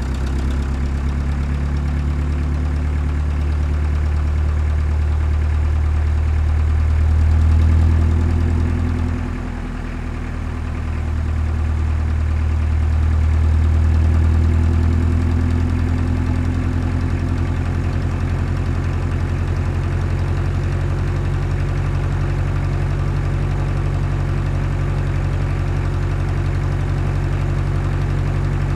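Heavy diesel engine of earthmoving machinery running at a steady low pitch. It swells louder about eight seconds in, drops back briefly, then swells again around fourteen seconds in.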